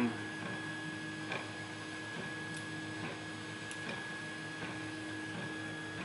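Steady electrical hum, with a few faint light clicks of tweezers handling small lock pins and springs.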